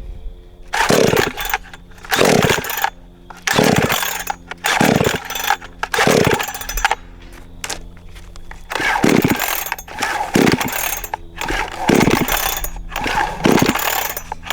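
Cheap gas chainsaw being pull-started over and over, about ten quick strokes of the starter cord roughly a second and a half apart with a short pause midway. The engine does not catch, and a steady low hum runs underneath.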